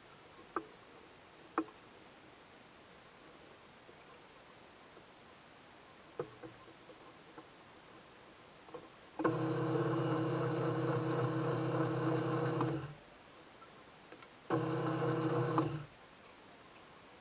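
Power drill running and boring into a solid wooden guitar body, in two steady runs: one of about three and a half seconds starting some nine seconds in, then a shorter one of just over a second. Before the drilling, a few light taps and clicks.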